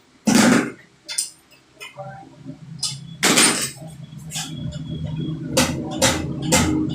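Metal tools and small metal parts clinking and knocking against each other, with a loud knock about half a second in and another past the middle. Near the end come evenly spaced strikes, about two a second, over a low steady hum.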